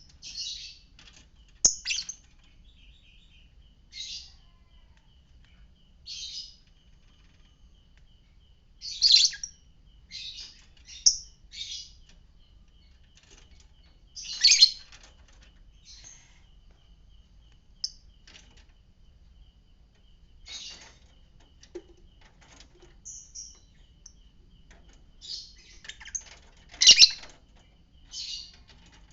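Lovebird chirping: short, high, shrill chirps at irregular intervals of a second or two, some much louder than others.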